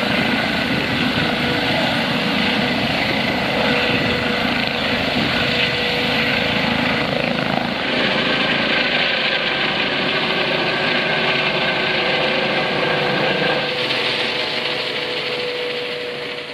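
Eurocopter EC135 helicopter lifting off from hover and climbing away, its turbine whine and rotor noise loud and steady. The sound fades over the last couple of seconds as it flies off.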